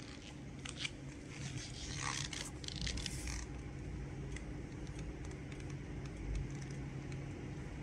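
Stiff cut lengths of red sling webbing handled and flexed by hand, scraping and rustling against each other, mostly in the first three and a half seconds, over a steady low hum.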